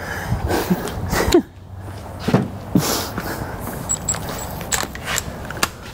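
Scattered clicks and knocks of hand tools being handled on the truck's underside, with a few brief vocal sounds.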